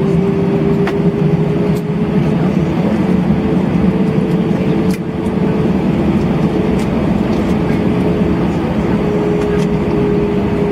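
Cabin noise inside an Airbus A320-232 rolling along the ground after landing: a steady drone from its IAE V2500 engines and the airframe, with a held tone over a broad rumble.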